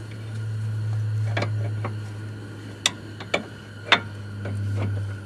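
Hand tools clicking and tapping as they are handled at a car's front suspension: about five sharp, separate clicks in the middle stretch, over a steady low hum.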